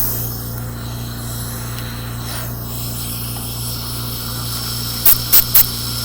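Dental air-water syringe and suction rinsing an amalgam-filled typodont tooth: a steady rush, then three quick, loud spurts of air about five seconds in.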